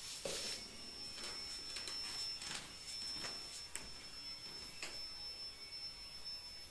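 Footsteps and movement on a wooden floor, a few irregular soft steps and shuffles, under a steady high-pitched whine.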